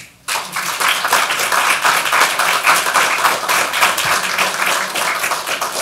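Audience applauding. The clapping starts sharply just after the start and holds steady throughout.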